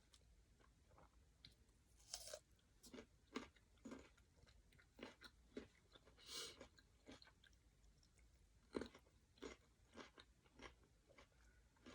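A person chewing and crunching a mouthful of papaya salad with vermicelli noodles: faint, irregular wet mouth clicks and soft crunches, with two longer, crisper crunches about two and six seconds in.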